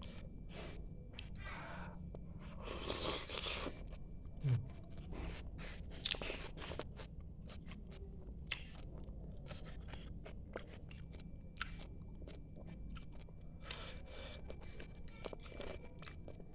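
Close-miked eating of spicy noodles and meatballs: wet chewing with many quick mouth clicks and smacks. A longer hissing burst comes about three seconds in and again near the end, and a brief low hum just after the first burst is the loudest moment.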